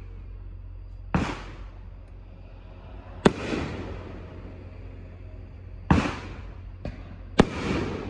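Consumer firework cake firing its shots: four loud, sharp bangs one to two and a half seconds apart, with a smaller bang just before the last, each trailing off quickly.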